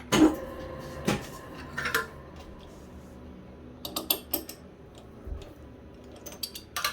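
Steel workholding parts being handled: sharp metal knocks and clicks at irregular intervals over a low, steady hum.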